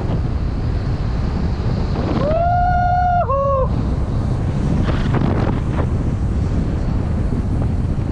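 Wind buffeting the microphone on a downhill ride, a steady loud rumble. About two seconds in, a held pitched tone sounds for about a second and a half, dropping a step just before it stops.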